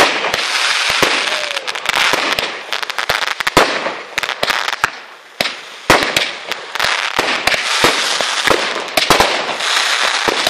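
Aerial fireworks going off in rapid succession: many sharp bangs of bursting shells over a continuous crackling hiss, with a brief lull about halfway through.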